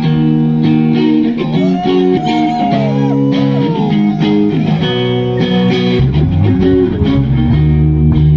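Guitar music: sustained plucked notes with a few notes bent up and down in pitch, and a low bass part coming in about six seconds in.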